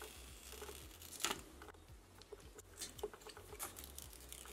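Thin protective plastic film being peeled off an iPhone X's glass body: a series of faint crackles and tearing sounds, the loudest a little over a second in.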